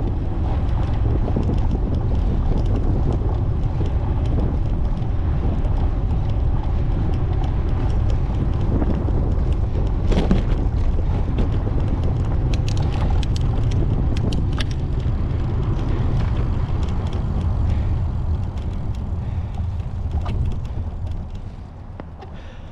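Steady rumble of road and wind noise from a vehicle on the move, with a few brief clicks in the middle. It eases off near the end, as if the vehicle is slowing down.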